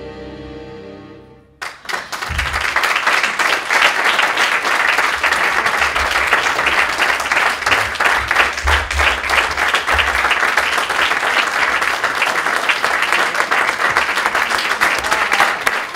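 Sustained music dying away in the first second and a half, then a theatre audience applauding steadily.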